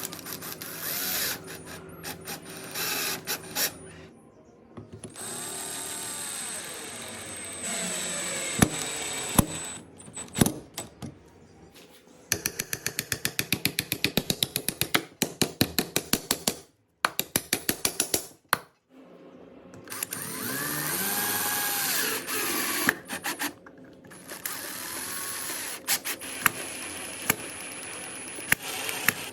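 Woodworking power tool, a drill, running in several bursts that speed up and slow down, with a run of rapid, even clicks in the middle and scattered knocks.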